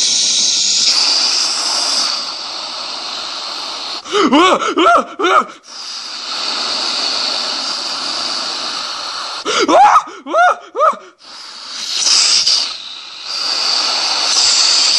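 Cartoon boxing-match soundtrack played off a TV. A steady hissing noise runs throughout, broken twice, about four and ten seconds in, by short flurries of raspy, squawking, rising-and-falling cries in Donald Duck's voice.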